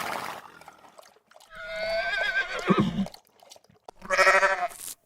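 Horse whinnying: a quick snort-like blast, then a neigh with a trembling, wavering pitch that ends in a low blow. Near the end comes a second, shorter and steadier call.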